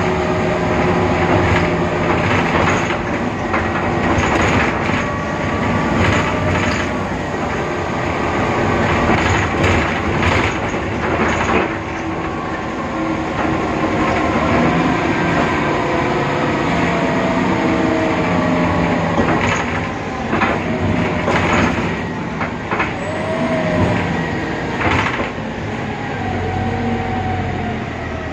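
BredaMenariniBus Avancity Plus city bus running, with its Deutz diesel engine and ZF 6HP Ecomat automatic gearbox whining at several steady pitches that drift up and down with speed over road noise. Repeated knocks and rattles come and go throughout.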